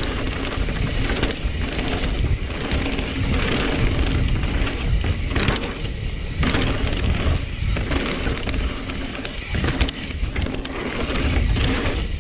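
Mountain bike riding down a dirt trail: wind buffeting the action-camera microphone and tyres rumbling over the ground, with background music mixed in.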